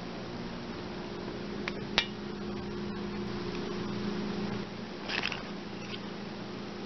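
A steady low hum with small handling sounds over it: a sharp click about two seconds in and a short rustle about five seconds in, as items on the table are handled.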